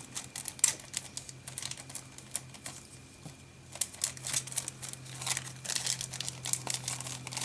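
Scattered light clicks and rustles of packaging being handled while a folding knife is placed into it, over a steady low hum.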